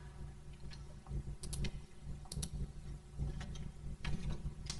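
Computer mouse clicking: a few scattered sharp clicks, some in quick pairs, over a low steady hum.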